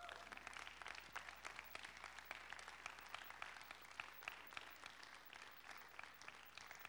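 Audience applauding, a dense patter of many hands clapping that cuts off abruptly at the end.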